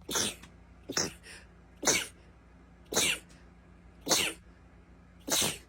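A person in a sneezing fit: six sharp sneezes in quick succession, about one a second, each dropping in pitch.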